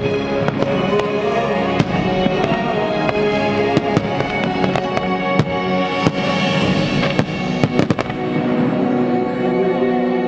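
Aerial fireworks shells bursting over a music soundtrack, with many sharp reports in quick, uneven succession and a stretch of hiss about six seconds in.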